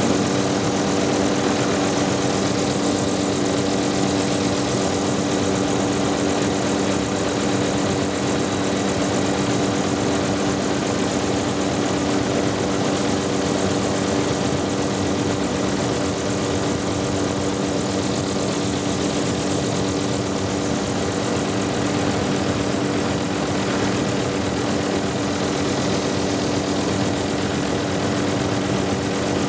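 Helicopter engine and rotor noise heard from inside the cabin in flight: a steady drone with several held tones over a constant hiss.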